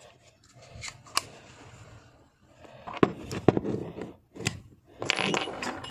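TİSAŞ Zigana semi-automatic pistol being handled and put back together: a series of sharp metallic clicks, with a busier stretch of clicking and scraping near the end as parts are fitted.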